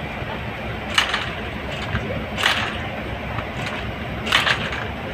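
Passenger train's steel wheels rumbling steadily over the track, with three sharp clacks about a second and a half apart as the wheels cross rail joints and points, heard from inside the moving coach.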